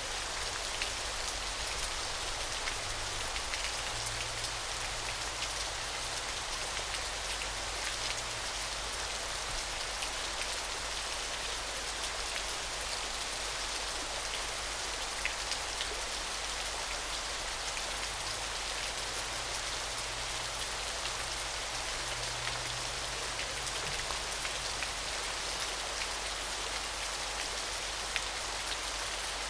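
Small waterfall: a steady, unbroken rush of falling and splashing water, thick with the patter of individual drops.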